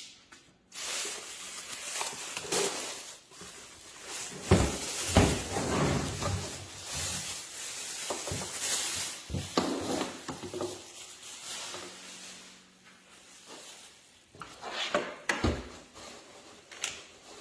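Drywall sander parts being handled and fitted together: a long stretch of rubbing and scraping, with several sharp knocks and clicks, quieter near the end.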